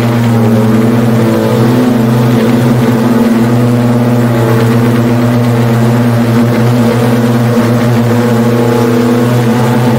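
Pivotal BlackFly eVTOL's electric motors and propellers running in flight: a loud, steady hum made of several held tones, shifting slightly in pitch now and then.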